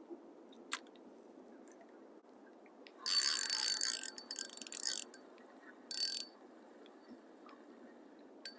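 Fishing reel being cranked, a mechanical whirring ratchet in three short spells about three, four and six seconds in, as line is reeled in.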